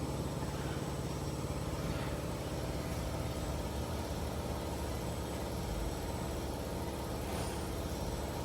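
Steady machine hum from running workshop equipment: an even drone built from several steady low tones, with a faint hiss above it.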